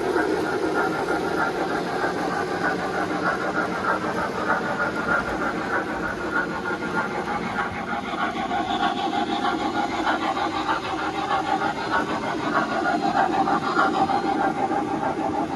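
O-gauge three-rail model passenger train rolling past on metal track: a steady rumble of wheels on rail with a whine that wavers in pitch.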